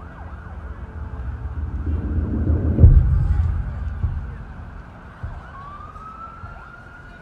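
Recorded city street ambience: a low vehicle rumble swells to a peak about three seconds in and then fades. Near the end a siren's wail starts to rise.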